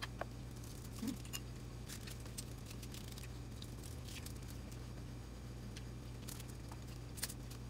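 Scattered small clicks and crackles of hands picking apart boiled crab and shrimp shells on a foil-covered table, over a steady low hum.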